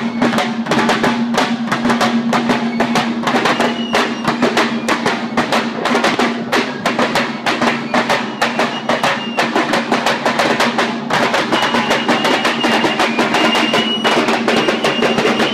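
Lambeg drums beaten with canes in fast, continuous rolls, a dense rattle of strokes over a steady deep drum tone. A fife plays high held notes over them, clearest in the second half.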